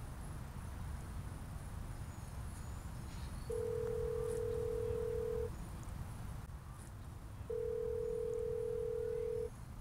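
Telephone ringback tone heard through a phone: a steady tone held about two seconds, twice, with a two-second gap, as an outgoing call rings unanswered.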